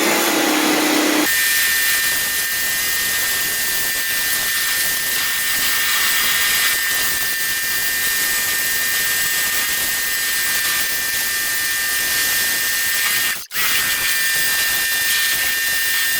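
Sun Joe SPX2004 electric pressure washer running under load: a steady electric motor-pump whine with a few high steady tones, over the hiss of the water jet. It cuts out for an instant near the end, then carries on.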